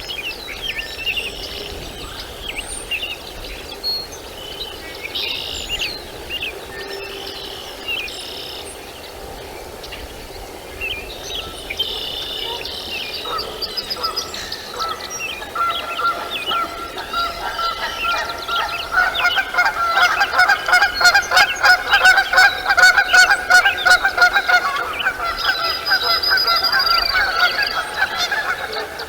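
Bird calls: scattered high chirps, then from about halfway a rapid run of repeated pitched honking calls that builds to its loudest and then eases near the end.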